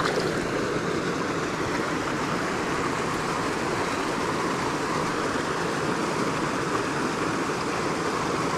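Shallow mountain creek running over rocks: a steady rush of flowing water, with the listener standing in it.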